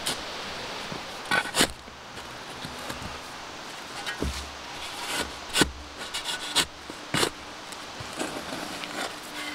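Steel shovel blade digging into forest soil: a string of irregular scraping, crunching strokes as it cuts and scoops dirt, with a dull thud about four seconds in.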